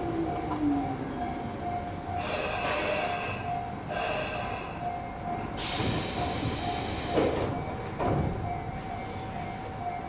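Tobu 9000 series electric train braking to a stop at a platform. A motor whine falls in pitch in the first second, then come wheel and brake noises and a loud burst of air hiss about six seconds in as it halts. A couple of knocks follow as the doors open.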